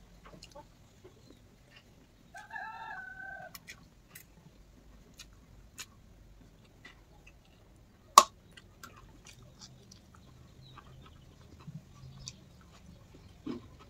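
Quiet eating sounds of noodles with a fork: small clicks of metal on the plate and soft mouth noises. A chicken clucks once, about a second long, about two and a half seconds in. One sharp click about eight seconds in is the loudest sound.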